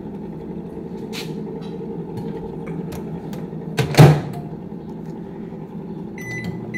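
Microwave oven being used to heat water for coffee: a sharp thump about four seconds in as the door is shut, then a few short keypad beeps near the end and the oven starting up with a low steady hum.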